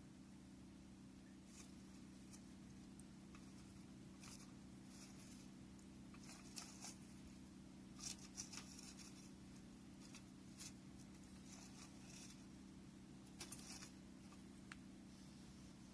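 Faint crackling and popping of burning wood in a bonfire: scattered short snaps, bunched a little past a third of the way in, around the middle and again near the end, over a steady low hum.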